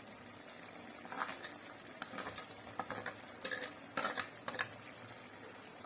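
A spoon stirring and scraping in a cooking pan of chicken and masala, with a scatter of short scrapes and light knocks through the middle and a faint sizzle underneath.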